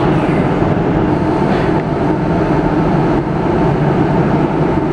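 NS Class 1700 electric locomotive standing at the head of its train with its equipment running, a loud steady hum as it readies to pull out.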